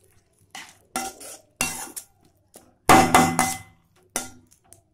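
A metal spoon clanking and scraping against a metal pan while stirring potato masala, in a string of separate strokes with a short ring after each. The loudest group of strokes comes about three seconds in.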